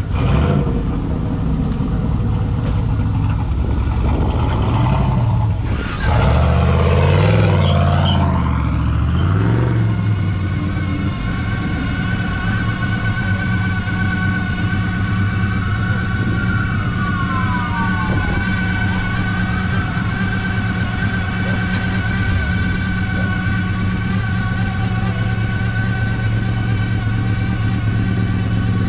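Car engines running, with one vehicle growing louder and changing pitch about six seconds in as it drives past, then fading, while a steady engine drone carries on.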